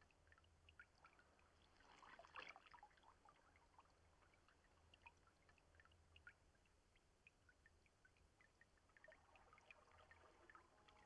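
Near silence: faint trickling and dripping of river water, scattered small drips, with a slightly louder stretch about two seconds in.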